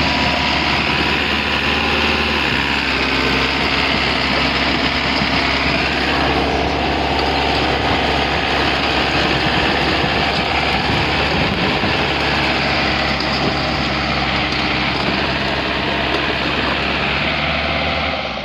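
Diesel engine of an earth-moving machine running steadily, with a constant hum that dies down at the very end.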